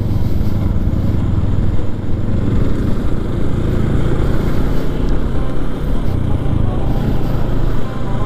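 Yamaha MX King 150's single-cylinder four-stroke engine running steadily under a riding load, its note stepping up a little about six seconds in, over a steady rush of wind and road noise.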